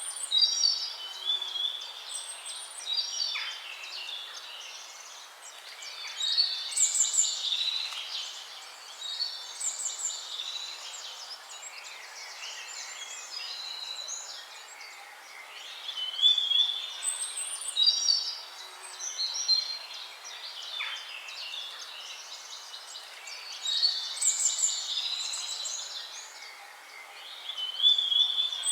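Songbirds singing, a busy mix of chirps and short warbled phrases that come in clusters, over a faint steady hiss.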